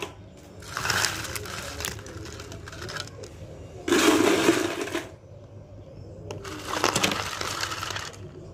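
Ice cubes rattling as a plastic scoop digs into ice and tips it into plastic cups. There are three bursts, each about a second long and roughly three seconds apart.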